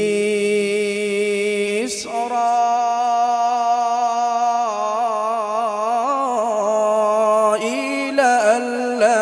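A man reciting the Quran in a melodic tajweed style through a microphone, drawing out the word "Isra'il" in long held, wavering notes. There is a short break about two seconds in, and then the pitch steps up.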